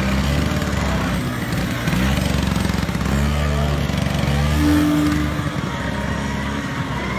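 Vintage Vespa scooter's two-stroke engine running at low speed, its pitch rising and falling as the rider opens and closes the throttle through tight turns, loudest about four and a half seconds in.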